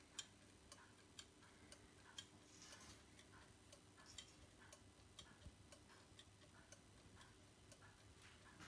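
Brillié electric regulator master clock ticking faintly and evenly, about two ticks a second, every other tick louder.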